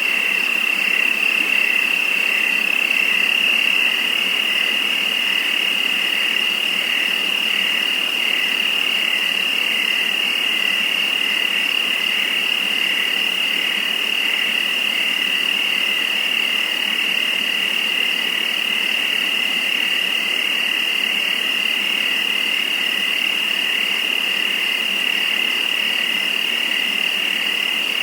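Crickets chirping in a dense, continuous nighttime chorus, a steady high trill with a faint pulsing over a light background hiss.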